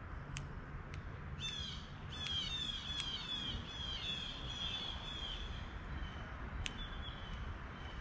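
Northern cardinal singing a run of quick, down-slurred whistled notes, about three or four a second, for roughly four seconds, then a couple of further slurred notes near the end. A few sharp chip notes come before and after the run.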